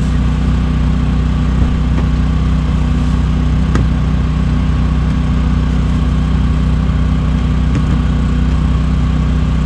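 An engine running steadily at an even speed: a constant low hum that never changes.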